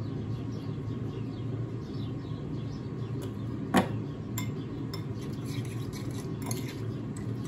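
Kitchen handling sounds: a glass spice jar of ground cumin is shaken over a ceramic bowl, its plastic lid screwed back on and the jar set down, then the diced tomato mixture is stirred in the bowl. There are scattered clinks, with one sharp knock about four seconds in. A steady low hum runs underneath.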